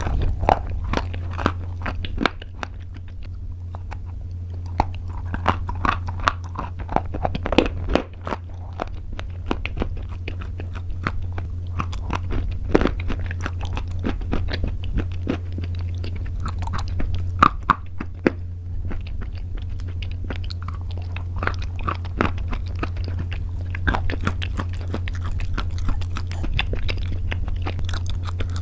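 Someone biting and chewing crunchy pasta: irregular sharp crackles as it is crunched between the teeth, over a steady low hum.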